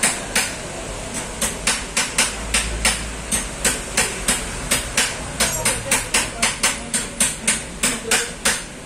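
A rapid series of sharp knocks, about three to four a second, like steady hammering. They stop near the end.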